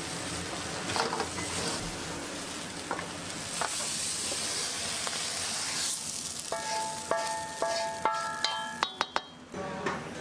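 Food sizzling as it fries, a steady hiss. About two-thirds of the way in, a short tune of held electronic-sounding notes plays over it, followed by a few sharp clicks near the end.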